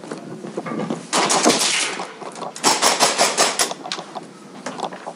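Guns firing in rapid automatic bursts: a dense burst about a second in, then a second burst of about ten quick shots near the middle.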